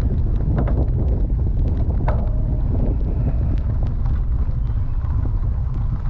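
Wind buffeting the microphone of a camera on a bicycle being ridden, a steady low rumble, with scattered small clicks and ticks from the bike and gravel.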